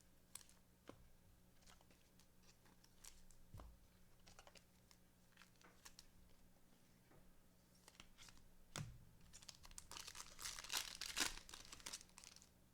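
Football card pack wrapper being torn open and crinkled, faint, with scattered small clicks from the cards and a denser stretch of crinkling near the end.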